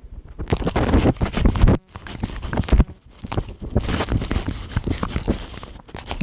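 A dog licking a small camera smeared with treats, its tongue and muzzle scraping right on the microphone in quick, close, wet strokes, broken by a few brief pauses.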